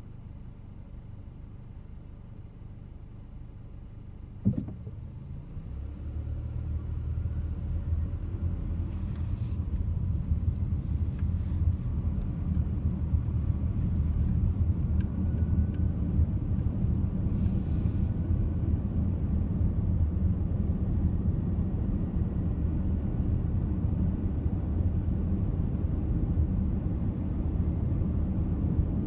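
Car heard from inside the cabin: a quiet low rumble while stopped, a single knock about four seconds in, then engine and tyre noise building as the car pulls away and holding steady at cruising speed.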